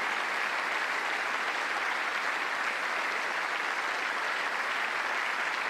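A large audience applauding steadily: a standing ovation, many hands clapping at once.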